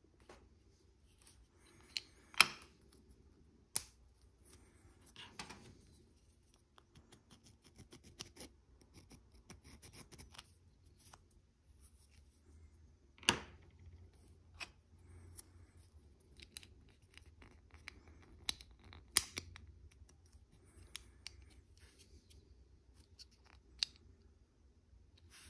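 Small hard-plastic model tank parts handled and pressed together by hand: scattered sharp clicks and taps, loudest a little over two seconds in, about thirteen seconds in and about nineteen seconds in, between faint scrapes and rustles.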